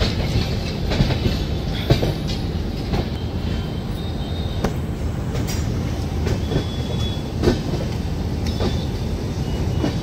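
A moving passenger train, the 12336 Bhagalpur Express, heard from aboard: its wheels rumble steadily on the rails, with irregular clicks and clanks as they cross rail joints and points.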